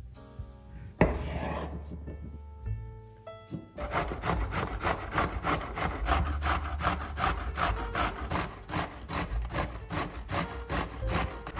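Fresh zucchini being grated by hand on a stainless-steel box grater, a quick, even run of rasping strokes that starts about four seconds in. A single thump comes about a second in.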